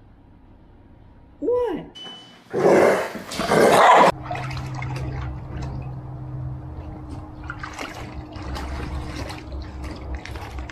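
Water sloshing and splashing in a plastic kiddie pool as a Belgian Malinois moves about in it, with a garden hose lying in the water. It is preceded by a brief loud rushing noise that cuts off abruptly about four seconds in.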